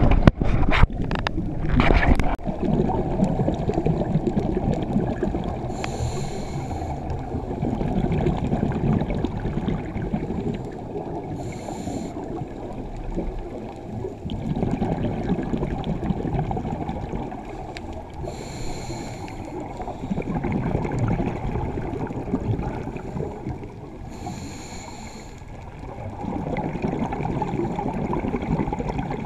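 Scuba diver breathing through a regulator underwater. A short hiss of inhalation comes about every six seconds, with low rumbling, gurgling exhaled bubbles between. A few sharp knocks sound in the first two seconds.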